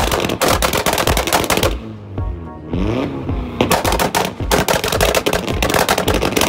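Tuned Volkswagen Golf Mk4's exhaust firing a rapid, machine-gun-like string of pops and bangs as the engine is held against its rev limiter. It comes in two long volleys with a short break about two seconds in, where the engine revs up briefly.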